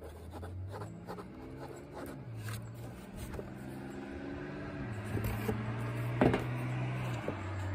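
A pen scratching on book pages as paperbacks are signed, with the books being handled and a sharp knock about six seconds in. A low drone runs underneath and jumps to a new pitch several times.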